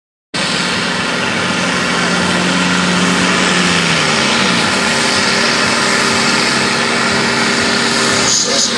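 Tractor-pulling tractor's engine running loud and hard, with a lower engine tone that drops away about four seconds in.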